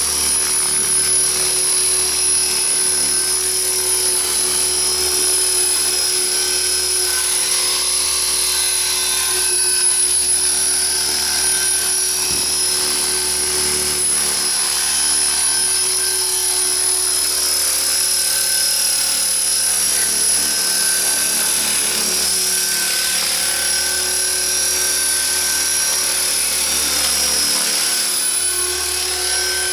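Radio-controlled model helicopter in flight: a steady, high-pitched motor whine with rotor noise, its pitch wavering a little as it hovers and climbs.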